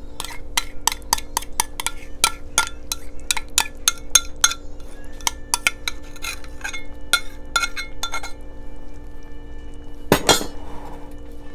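A spoon clinking and scraping against a glass measuring cup as thick sour cream is scooped out, a quick run of ringing clinks about three a second that stops a little past the middle. One louder knock and scrape comes near the end.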